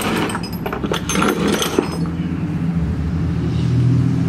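Metal clinks and knocks of tools and parts being handled on the engine stand during the first two seconds, then a steady low engine hum that swells near the end.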